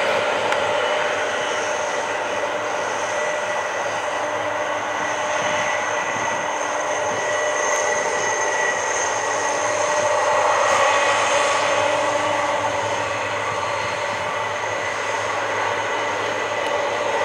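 Boeing 767's twin jet engines running at low thrust as the airliner rolls slowly along the runway: a steady whine of several held tones over a rushing hiss, swelling slightly about ten seconds in.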